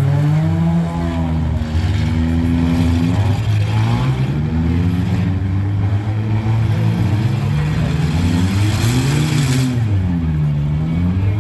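Several compact demolition derby cars' engines revving, their pitch rising and falling over and over as they run against each other.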